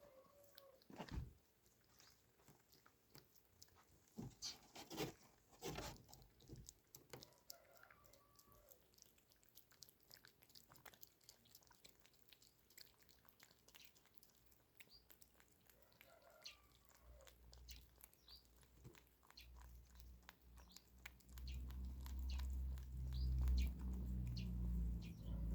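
A cat eating, with faint, irregular chewing and crunching clicks. A low rumble comes in near the end.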